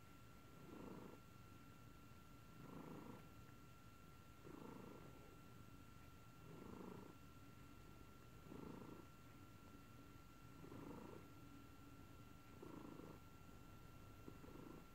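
Domestic cat purring softly and continuously, the purr swelling louder about every two seconds.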